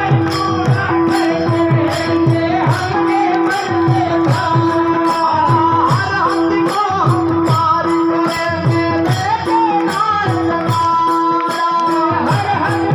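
Devotional song music: held steady instrumental tones and a bending melody over a steady beat of drum strokes and jingling cymbals, about two to three strokes a second.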